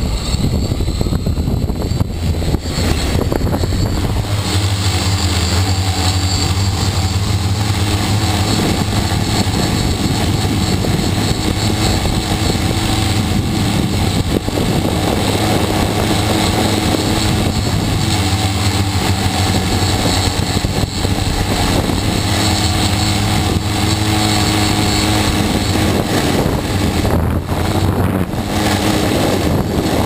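T580 quadcopter's electric motors and propellers buzzing loudly right at the camera, spinning up at the start and then holding a steady pitched buzz in flight.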